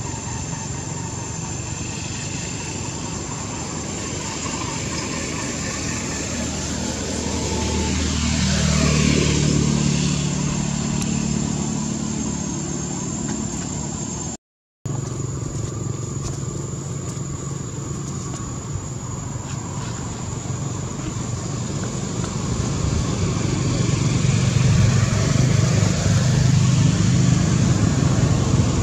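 Motor vehicle engines running nearby with a steady low hum; one passes about nine seconds in, growing louder and falling in pitch. A steady high whine runs underneath, and the sound cuts out for a moment about halfway through.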